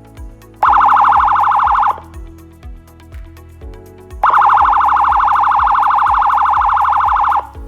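Boss 200-watt electronic police siren sounding two blasts of a fast-pulsing, steady high tone. A short one comes about half a second in, and a longer one of about three seconds starts about four seconds in. Background music with a steady beat plays underneath.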